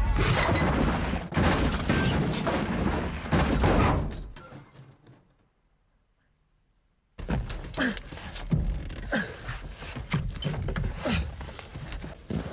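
Car crash: heavy thuds and breaking glass for about four seconds, dying away into near silence. About seven seconds in, rain and water cut in suddenly, with scattered knocks and splashes.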